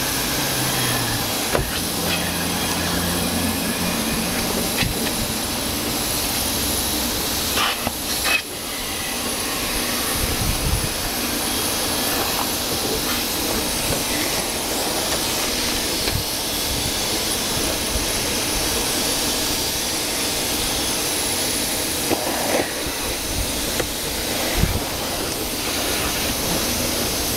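Car wash vacuum station hose running, a steady loud hiss of suction air, with a few short knocks.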